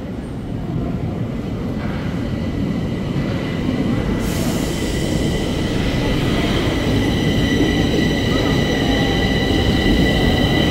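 Bucharest Metro train arriving at an underground platform, its rumble growing louder as the cars come alongside, with a steady high whine setting in about four seconds in and holding as it slows.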